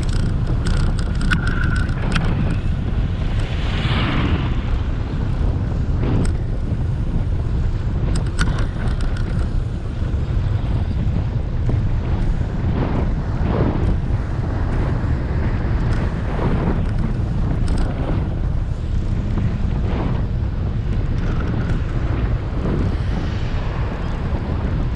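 Wind buffeting a GoPro action camera's microphone during a bicycle ride: a steady low rumble with scattered clicks and rattles throughout.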